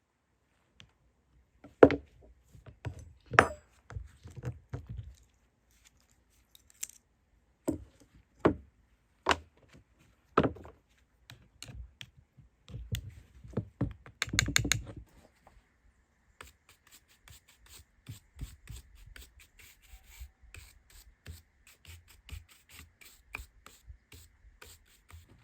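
Handwork noises: scattered sharp knocks and clacks, a short rasping scrape about halfway through, then a fast, fine ticking that runs on through the last third.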